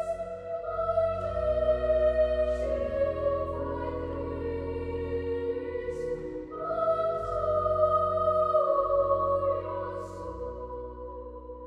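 Slow, solemn background music: a voice singing long held notes in slow phrases over a low sustained drone, fading out near the end.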